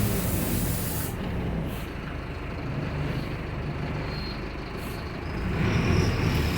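City bus running: a steady low engine and road rumble, with a broad hiss in the first second that cuts off. The engine grows louder again about five and a half seconds in.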